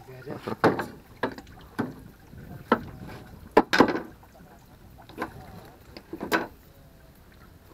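A landed fish flapping in a landing net on wooden boardwalk planks, with the net's frame knocking the boards: about eight irregular slaps and knocks that die away near the end.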